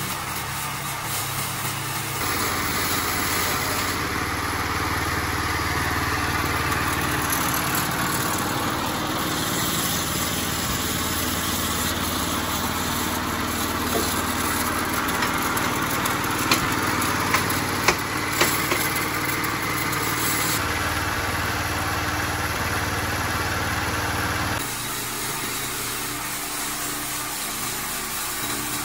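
Homemade horizontal sawmill running steadily. Its noise swells a couple of seconds in, holds with a few sharp ticks about two-thirds of the way through, then drops back to a lighter steady run near the end.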